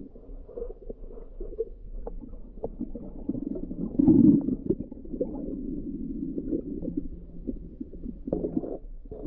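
Muffled underwater rumble of shallow water moving around a submerged camera, with scattered small clicks and knocks and a louder surge about four seconds in.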